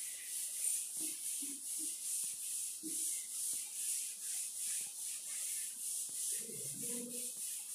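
Chalk duster wiping a chalkboard clean, a brushing hiss in quick, even back-and-forth strokes.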